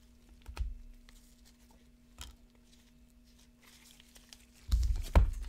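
Panini Prizm football trading cards being flipped through in gloved hands: a few light ticks and slides, then a louder bout of knocks and rustling near the end. A faint steady hum runs underneath.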